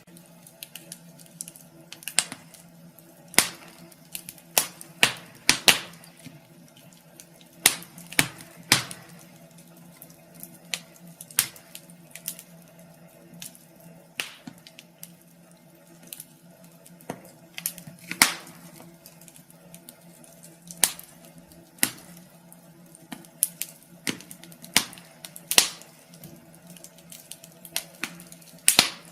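Wood fire crackling in a fireplace: irregular sharp snaps and pops, a few much louder than the rest, over a faint steady low hum.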